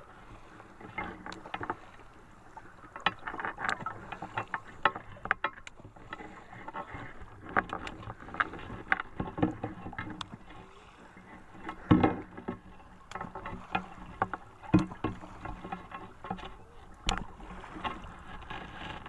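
Lake water splashing and sloshing close by in irregular bursts, with a few louder splashes in the second half.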